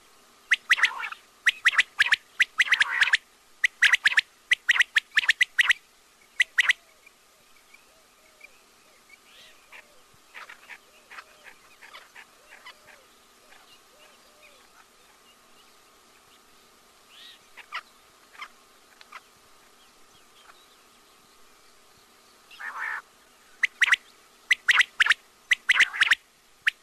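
Quail calling: quick runs of short, sharp, repeated calls, then a long lull with only faint scattered chirps, and the runs starting again near the end. A faint steady hum runs underneath.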